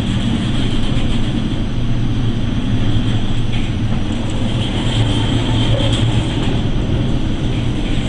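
Steady low drone of a vessel's engines with an even wash of noise over it.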